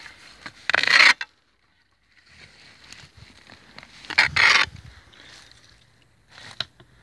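Dry straw rustling and scraping as a small hand tool digs through straw bedding, in two loud bursts about a second and four seconds in. Between them, all sound cuts out for about a second.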